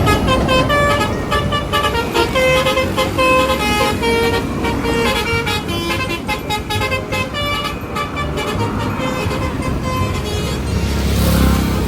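Indonesian 'telolet' multi-tone bus horn playing a tune of short, steady musical notes at changing pitches over a low rumble. Near the end the notes stop and a rushing noise rises.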